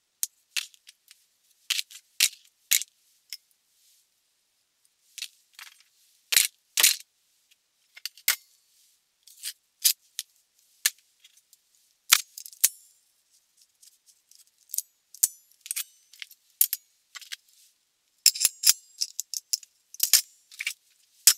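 Sharp clicks and clacks of hand clamps being worked and handled: a plastic spring clamp snapping, a steel F-clamp's bar and screw, and metal locking pliers clicking and knocking together. They come singly and in short bursts, busiest near the end.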